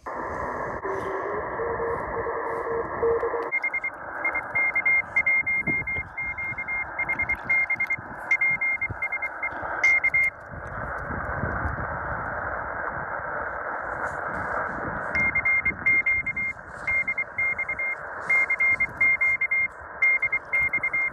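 Morse code (CW) heard on a Tecsun PL-880 shortwave receiver tuned to about 14.06 MHz in the 20-metre amateur band: a high keyed beep in dots and dashes over a steady hiss of band noise. The signal starts a few seconds in, breaks off for several seconds in the middle, then resumes.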